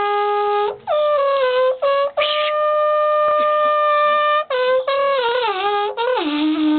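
Shepherd's horn blown as a long-distance signalling call: a series of loud held notes with short breaks between them, each note sliding down in pitch as it starts and then holding steady. Near the end a lower note drops in and is held.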